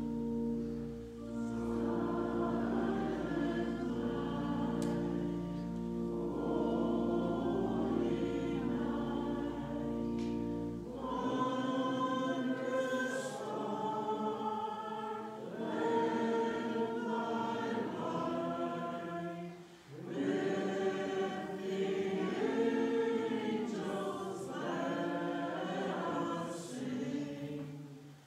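A choir singing a slow hymn in long held phrases, with a short break between phrases. A low steady hum lies beneath the first third and cuts off abruptly.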